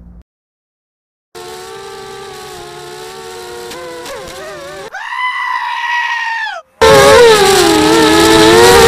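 Motors and propellers of a 250-size mini quadcopter whining, picked up by its onboard camera. The pitch wavers and shifts with the throttle, rises for about two seconds in the middle and glides down, and the sound breaks off twice before coming back loudest near the end.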